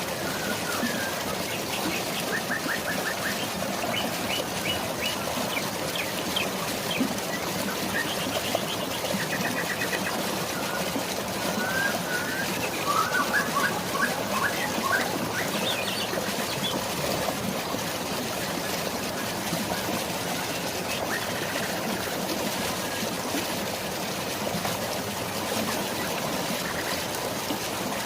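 Steady rush of falling water, with birds chirping over it in short rapid trills, mostly in the first half and sparse after that.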